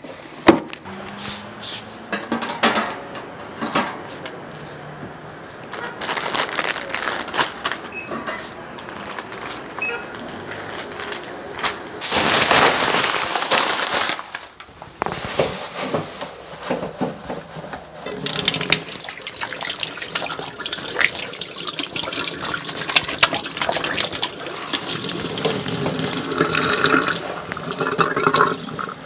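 Kitchen handling sounds: plastic food packaging and a plastic grocery bag rustling and crinkling, with knocks and clatter of items being moved. About twelve seconds in comes a loud rushing noise lasting a couple of seconds, and from about eighteen seconds on the rustling and clatter grow denser.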